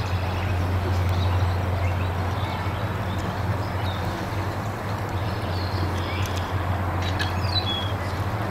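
Steady outdoor rumble and hiss, with small birds chirping faintly a few times; one chirp falls in pitch near the end.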